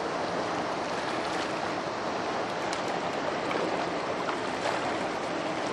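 Steady rush of river water flowing below a lock and dam, an even hiss that holds at one level throughout.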